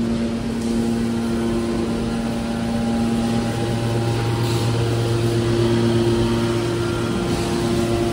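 Hydraulic metal baler's power unit, its electric motor and hydraulic pump, running with a steady droning hum.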